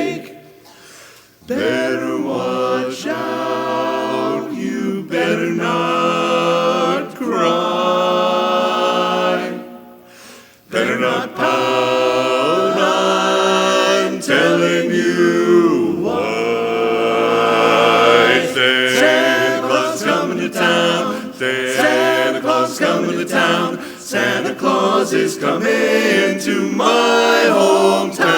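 Male barbershop chorus singing a cappella in close harmony, with two brief pauses between phrases, about a second in and about ten seconds in.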